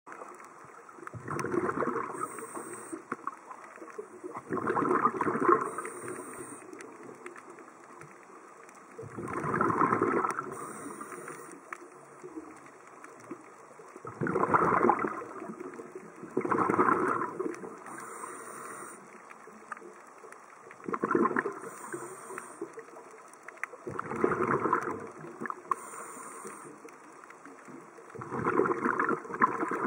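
A scuba diver breathing through a regulator, heard underwater: about eight bursts of exhaled bubbles, roughly one every 3 to 4 seconds, each a rumbling gurgle lasting about a second. Between them are faint high hisses from the regulator on each breath in.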